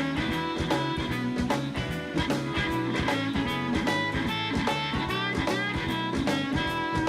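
Blues band playing an instrumental passage: guitar over a drum kit keeping a steady beat.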